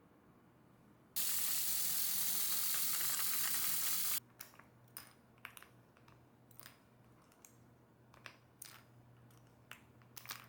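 A loud, steady hiss for about three seconds, cutting off sharply, followed by a run of light, irregular clicks and taps.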